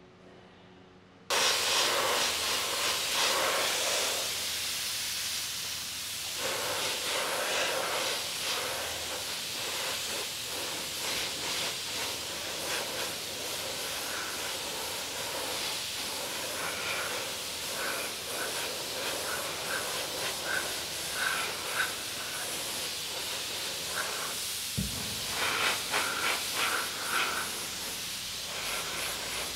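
Aerosol spray paint can hissing as black paint is sprayed onto metal gun parts. The hiss starts abruptly about a second in and runs mostly steadily, breaking into short bursts near the end.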